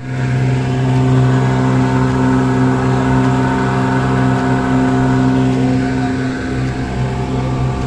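Boat engine running steadily at a constant speed, with an even, unchanging hum.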